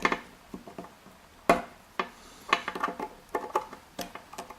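Sharp metal clicks and taps of tools and parts working at a padlock cylinder and its retaining clip, the loudest about a second and a half in, with clusters of lighter clicks after.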